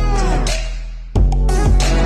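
Electronic background music with a heavy, deep bass and gliding synth notes. A new loud phrase comes in about a second in.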